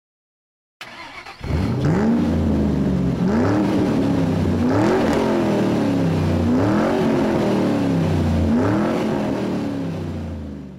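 An engine revved in a series of about five throttle blips, each rising quickly in pitch and then sinking slowly, starting about a second and a half in.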